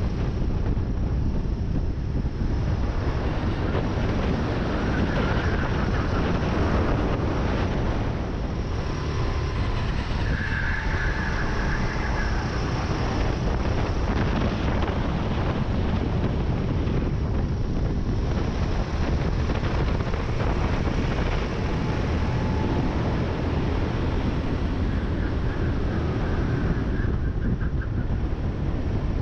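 Rental kart engine running hard at racing speed, close to the onboard camera, with heavy wind buffeting on the microphone. The engine sound stays steady, with brief faint whistling tones now and then.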